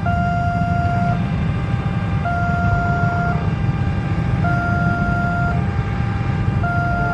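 Automatic warning siren of a railway level crossing, alternating between two tones, each held about a second, over a steady low rumble of road vehicles.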